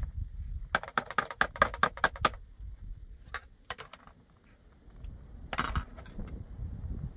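A quick run of about a dozen sharp clicks or taps, hard objects knocking together, lasting about a second and a half, then a few single knocks later on.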